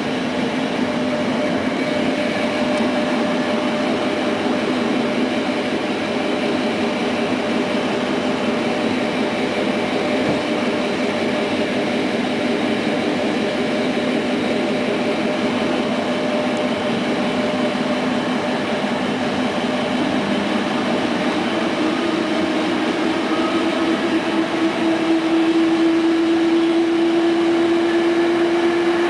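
Passenger train running at speed, heard from inside a coach: a steady rumble of wheels on rail with a humming tone. The tone rises slightly in pitch and grows louder over the last several seconds.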